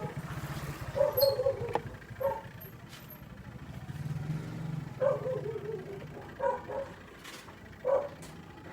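A dog barking in short yelps, about six times with gaps between, over a steady low hum.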